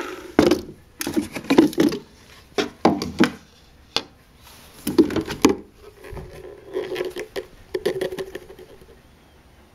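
Blendtec blender motor stopping at the start, then irregular knocks, taps and clatters of the plastic blender jar and its lid being handled, with crushed ice inside.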